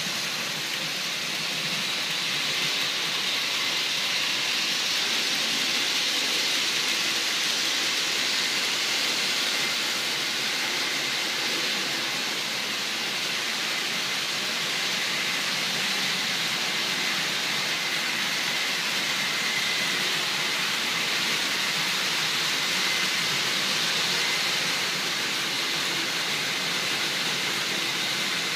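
HO-scale model train, an electric locomotive hauling passenger coaches, running along the track: a steady rolling hiss of small metal wheels on the rails, with a faint high steady tone over it.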